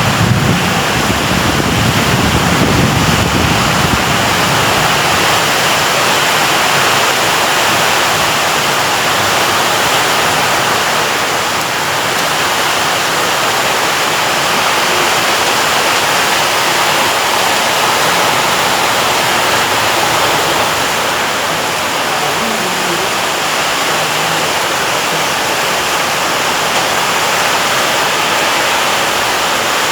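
Heavy rain falling, a steady dense hiss, with a low rumble under it in the first few seconds.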